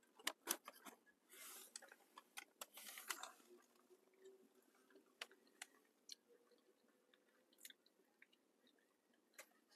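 Faint chewing of fried plantain, with scattered soft mouth clicks and brief rustles of a paper food cone.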